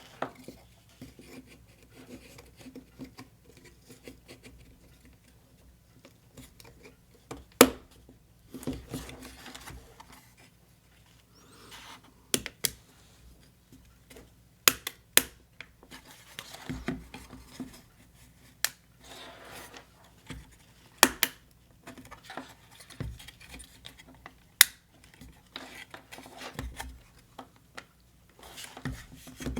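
Small parts of a miniature book nook kit clicking and tapping as they are handled and pressed together, with rustling between, in scattered sharp clicks about ten times over the stretch.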